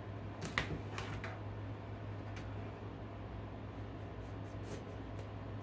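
Scattered light clicks and taps from a kitchen knife and plastic cutting board as chopped green bell pepper is tipped into a zip-top bag and a fresh bell pepper is cut, the sharpest click about half a second in and a few fainter ones near the end. A steady low hum runs underneath.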